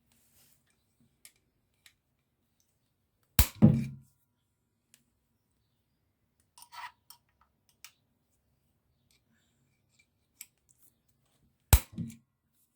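Two sharp cracks about eight seconds apart, each followed by a short clunk, as the bolts holding the Ducati clutch slave cylinder are broken loose with a hand tool, with a few faint tool clicks in between.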